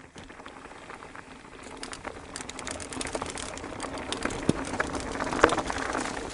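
Mountain bike rolling down a rocky trail: tyres crunching over loose rock and the bike rattling with many small clicks and knocks, growing louder as it goes, with one sharper knock near the end.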